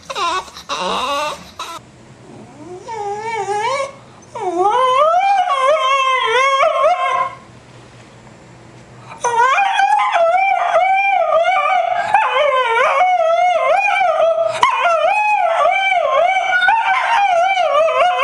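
A dog howling in long, wavering calls that rise and fall in pitch, in two spells with a short pause about seven seconds in. Before that, a dog's brief choppy vocalizing.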